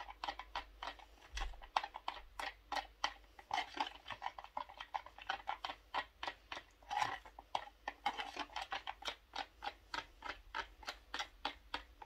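Stir stick mixing blue mica powder into resin in a plastic measuring jug, knocking and scraping against the jug's sides in quick, irregular clicks, several a second.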